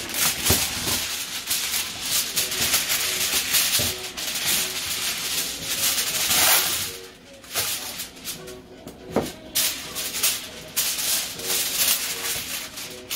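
Heavy-duty aluminium foil pulled off the roll and crinkled in the hands: a loud, continuous crackling rustle that eases off about seven seconds in and then comes back in shorter spells.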